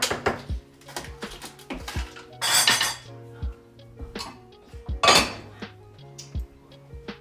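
Kitchen utensils and dishes clattering: repeated clinks and knocks of cutlery against pots and pans, with two louder, longer rushes of noise near the middle. Background music plays underneath.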